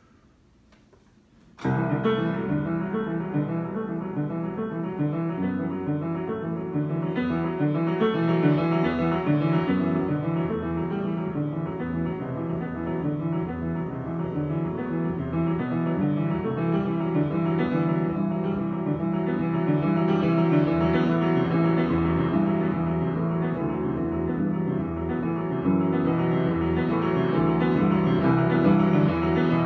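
Piano improvisation that begins suddenly about a second and a half in, after a brief near silence, and plays on as dense, continuous chords and lines.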